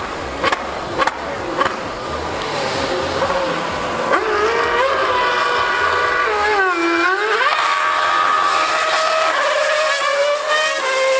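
2013 Mercedes Formula 1 car's 2.4-litre V8 screaming past at high revs: the high-pitched wail comes in about four seconds in, dips sharply in pitch for about a second and climbs back, then holds a steady high note that eases down near the end. A few sharp clicks, about two a second, sound at the start.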